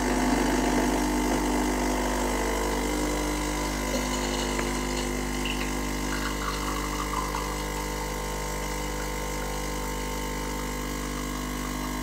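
De'Longhi Stilosa espresso machine's vibratory pump running steadily with a low, even hum while pulling an espresso shot into a glass cup.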